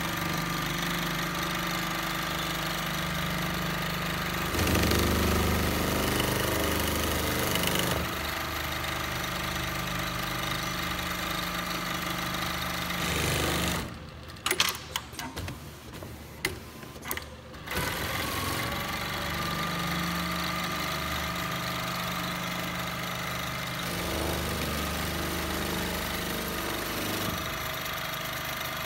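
Dematron DM-1075 industrial programmable pattern sewing machine running, its needle stitching at speed over a steady motor hum. About halfway through it goes quiet for a few seconds with a few sharp clicks, then starts running steadily again.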